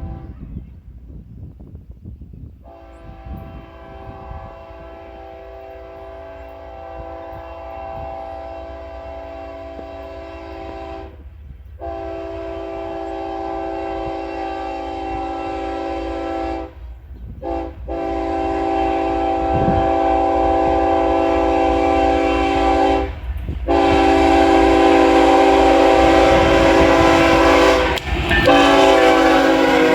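Ferromex freight locomotive's multi-tone air horn sounding in several long blasts with brief breaks, growing louder as the train approaches, over a low rumble from the train.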